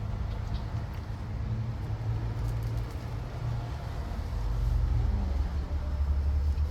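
Low, steady vehicle rumble, a car engine running or traffic close by, that drops lower and grows a little louder about four seconds in.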